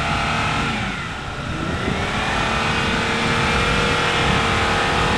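Vehicle engine revving hard under load. The pitch drops off about a second in, climbs again a second later and holds high.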